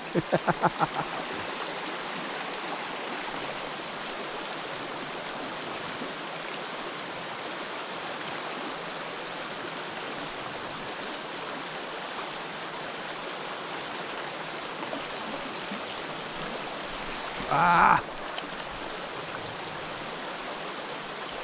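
A mountain trout stream flowing steadily over rocks, an even rushing water noise. A brief louder sound breaks in about 17 seconds in.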